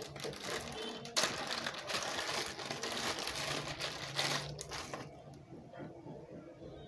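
Clear plastic packaging bag crinkling and rustling as a battery charger is handled and pulled out of it, dying down to faint rustles after about five seconds.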